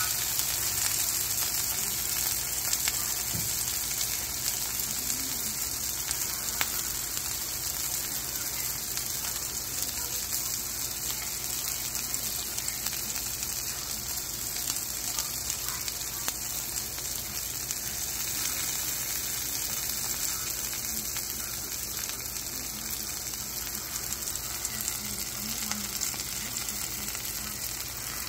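Burger patty and sliced onions frying in a skillet, making a steady high sizzle with a crackle of grease now and then.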